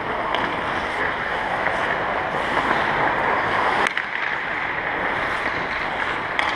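Ice hockey practice in an echoing rink: a steady hissing wash of skates on ice and hall noise, with one sharp crack about four seconds in.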